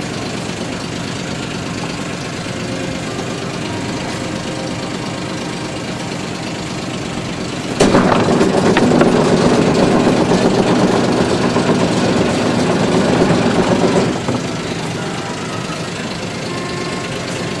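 Small fishing boat's engine idling steadily. About eight seconds in it suddenly gets louder for some six seconds, then drops back to the steady idle.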